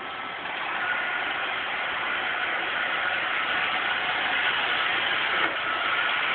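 Roomba robot vacuum running: a steady whirring hum of its motor and brushes with a faint high whine, getting a little louder about half a second in.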